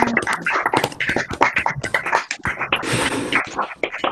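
Several people clapping over a video call: applause picked up by laptop microphones, a dense run of uneven claps with a short burst of hiss near the end.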